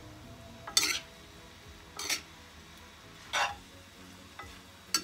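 Metal spoon scraping and tossing rice noodles and vegetables in a stainless steel frying pan, three strokes about every 1.3 seconds, over a faint sizzle of frying.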